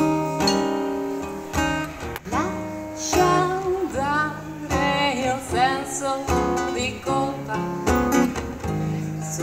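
Acoustic blues played on a guitar and a smaller plucked string instrument, with a woman's wordless vocal gliding up and down through the middle.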